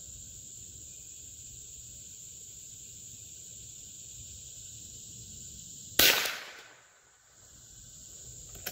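A single shot from a Howa M1100 .22 LR bolt-action rifle firing a CCI Mini-Mag 40-grain round-nose cartridge, about six seconds in, over a steady high drone of insects.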